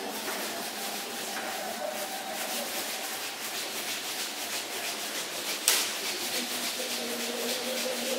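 Continuous rubbing and scraping from a square frame pressed and twisted against a shirt, with one sharp click a little past halfway.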